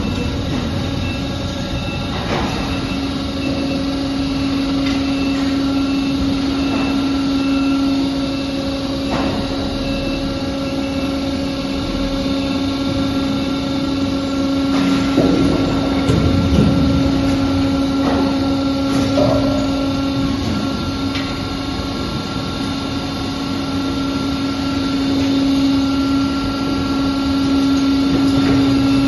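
McIntyre 1300 BOSS engine cracker running, its hydraulic power unit giving a steady hum, with scattered knocks and a stretch of clattering metal about halfway through as engines are cracked.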